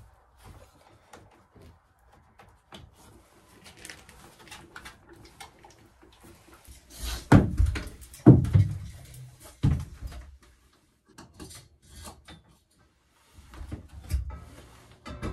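Knocks, clatter and thumps of someone working inside a small wooden shed, with three loud thumps a little past the middle.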